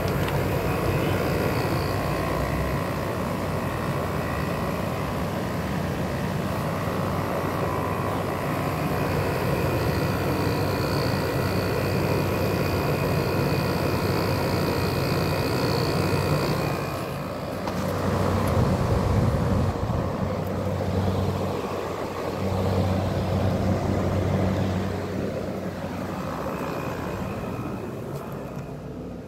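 12,000 BTU window air conditioner running just after start-up, its compressor humming under the steady whoosh of the fan with a few faint whines. The hum gets stronger a little over halfway through, and the sound grows fainter near the end. The unit has sat unused for two weeks and is not yet blowing cold.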